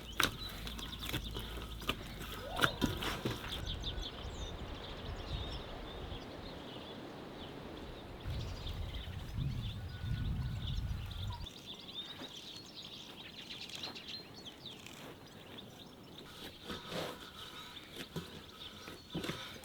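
Outdoor ambience with birds chirping, and scattered soft clicks and knocks near the start and again near the end.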